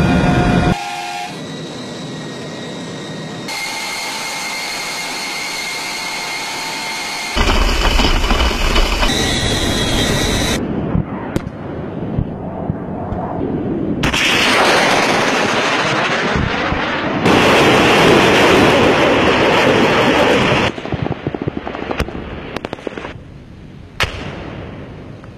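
A cut-together run of military sounds: a transport aircraft's engines droning with steady whining tones, then long loud rushes of noise, and several sharp bangs of gunfire or explosions near the end.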